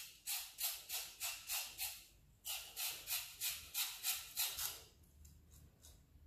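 A carrot being grated finely on a flat hand grater: rasping strokes about three a second, in two runs with a short break after about two seconds, stopping about five seconds in.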